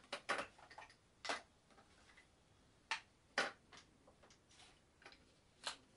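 Irregular wooden clicks and knocks from an old low-warp hand loom as its shuttle bobbin is changed and the loom parts are handled, about seven sharp taps spaced unevenly.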